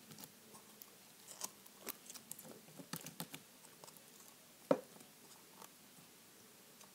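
Fingers scraping sticky white slime with foam beads out of a clear plastic jar: faint, scattered sticky clicks and little crunches, with one louder click about four and a half seconds in.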